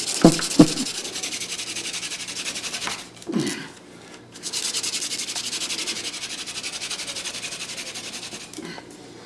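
Hand drill fire-making: a mullein stalk spindle spun back and forth between the palms, its tip rubbing and squeaking in the hearth board to build friction heat. Two spells of fast, even rubbing, with a break of about a second and a half in the middle.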